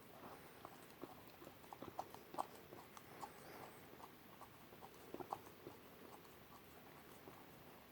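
German Shepherd puppy licking whipped cream from a small cup: faint, quick, irregular licks and smacks.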